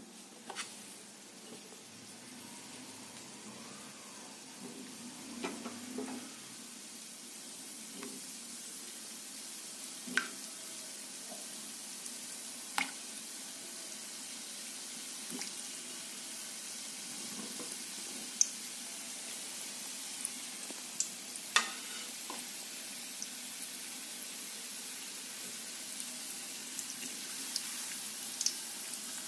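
Bread gulab jamun dough balls deep-frying in hot oil in an iron kadhai: a steady sizzle that grows gradually louder, with a few scattered sharp clicks.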